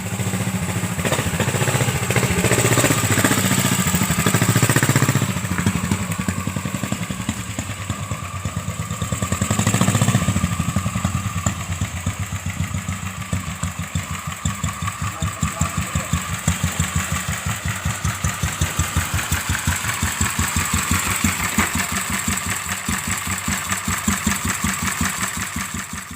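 A 400 cc stationary engine running in a custom-built motorcycle, picking up speed twice early on and then settling into a slower, even beat of firing strokes.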